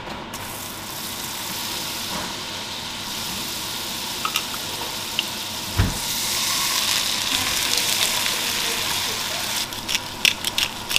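Crayfish pieces frying in garlic butter, a steady sizzle from the pan that grows louder about halfway through. There is a single knock just before the sizzle swells, and a run of quick clicks near the end.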